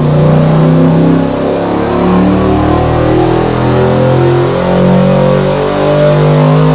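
A 393-cubic-inch Ford Cleveland V8 on an engine dynamometer, running loud under load on petrol alone with its LPG liquid injection switched off. It holds a fairly steady pitch.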